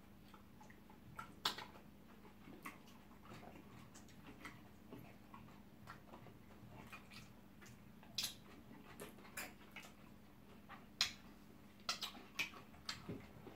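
Eating sounds from people eating eba and okra soup by hand: scattered wet mouth smacks, clicks and finger-licking, a few louder ones near the end, over a faint steady hum.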